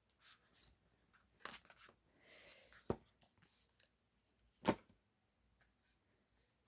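Faint rustling of paper and card as the pieces of a K-pop album (photocards and inserts) are handled, with two sharp taps, about three seconds in and again near five seconds.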